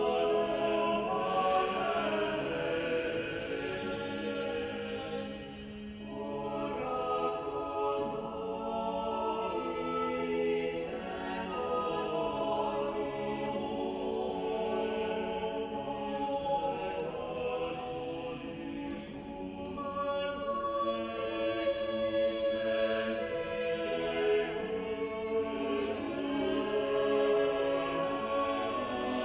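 Choral music: voices singing sustained chords that move slowly from one to the next.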